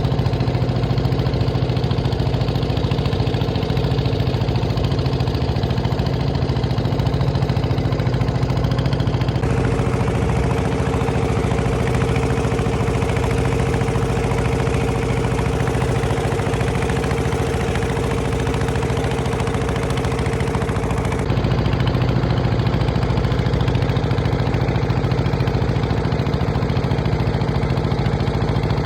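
An engine running steadily at an even pitch. Its sound changes abruptly about ten seconds in and changes back about twenty-one seconds in.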